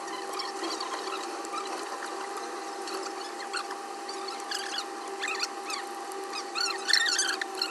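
Irregular squeaks, scratches and clicks of a hand tool working against cracked phone back glass, getting busier and louder near the end, over a steady hum.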